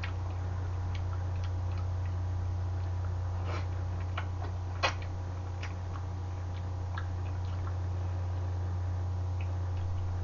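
Chewing of freshwater eel skin and bones: scattered small clicks and mouth smacks, one sharper click about five seconds in, over a steady low hum.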